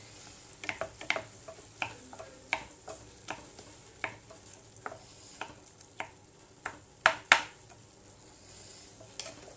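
Wooden spatula stirring and tapping boiled cassava with onions in a frying pan, giving short sharp taps about one or two a second over a faint sizzle of oil. Two louder knocks come a little after seven seconds.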